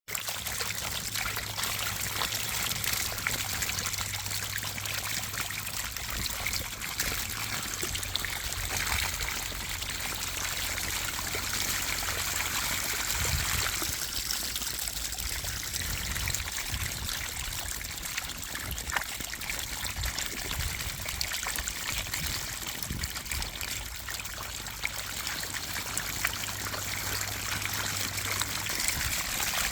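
Continuous splashing and trickling of water as a mass of fish jump at the surface, with a steady low hum underneath for much of the time.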